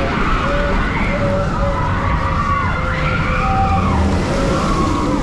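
Train running, with a steady low rumble and high-pitched squeals that rise and fall over about a second each, like wheels squealing on a curve.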